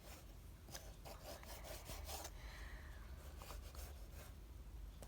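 Faint rubbing and scraping of hands working modelling clay, with a few light taps.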